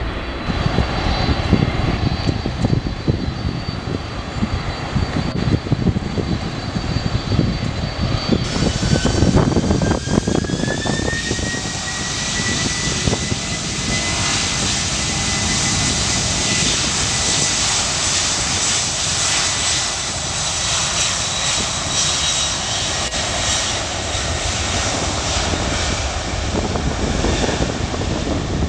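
Jet engines of a Tampa Cargo Boeing 767 freighter spooling up for takeoff: a whine rises in pitch about eight seconds in, then holds steady over a loud rumble. Before that, the low rumble of another jet climbing away after departure.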